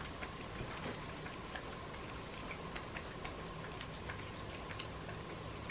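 Melting snow dripping off a roof: irregular drops ticking and pattering, several a second, over a faint steady hum.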